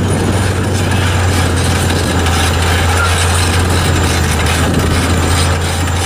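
Large Caterpillar crawler bulldozer's diesel engine running steadily as the machine pushes broken rock with its blade: a deep, even engine drone under a noisy rumble.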